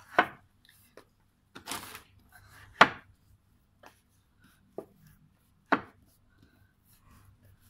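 Bread dough being rolled out by hand on a wooden board: soft rubbing broken by a few sharp wooden knocks at irregular intervals, the loudest about three seconds in.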